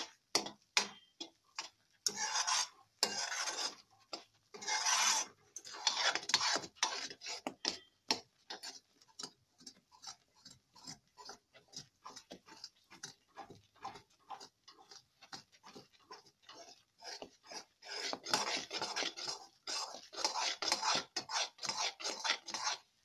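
Metal ladle scraping and stirring thick wheat-flour halwa around a metal kadai: a long run of quick rasping strokes, busiest near the start and in the last few seconds. This is the continuous stirring after the sugar water goes in, which keeps the flour from forming lumps.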